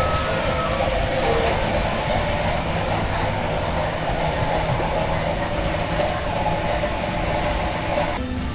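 Train running: a steady loud rail noise that cuts off abruptly near the end.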